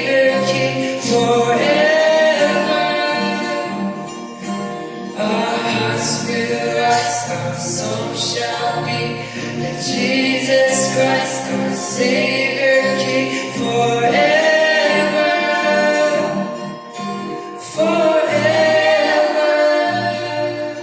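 Choir singing a gospel worship song over instrumental backing, in long held phrases; the music fades out near the end.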